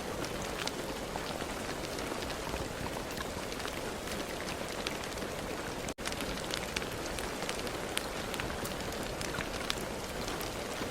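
Steady rain falling, with many single drops striking close by as sharp little ticks over the even hiss. About six seconds in, the sound cuts out for a split second and comes straight back.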